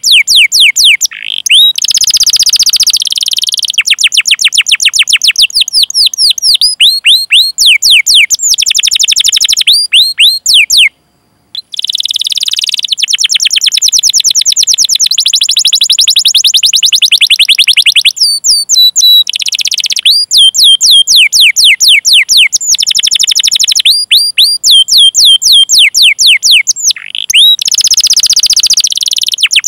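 Domestic canary singing loudly in long rolling trills: runs of very fast repeated notes, each a quick high downward sweep, lasting several seconds at a time and broken by short pauses. Near the middle there is a sudden brief dropout to silence.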